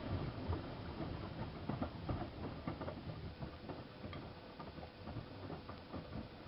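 Miele Softtronic W3657 front-loading washing machine in a 60 °C colour wash, its drum turning as the laundry tumbles and sloshes with irregular soft knocks and patters, over a faint steady hum.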